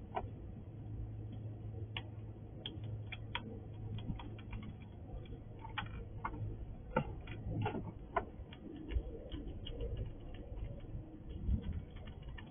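Squirrel cracking and chewing sunflower seeds: irregular sharp clicks of shells cracking between its teeth, over a steady low hum.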